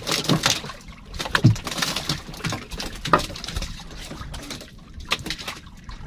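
Choppy sea water slapping and splashing against the hull of a small wooden boat, with irregular knocks and splashes.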